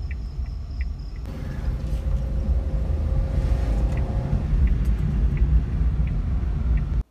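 Small car's engine and road noise heard from inside the cabin while driving slowly, a steady low rumble. A faint tick repeats about every three-quarters of a second.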